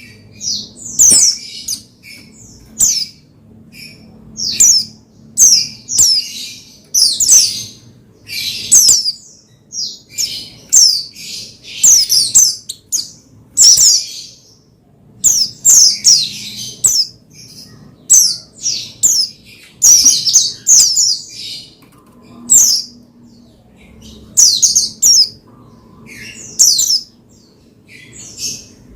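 White-eye (pleci) birds calling: short, sharp, high-pitched chirps and twittering phrases, repeating about once or twice a second.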